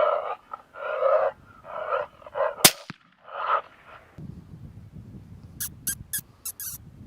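Several short, rough coyote barks, with a single rifle shot about two and a half seconds in. A run of short, high squeaks starts near the end.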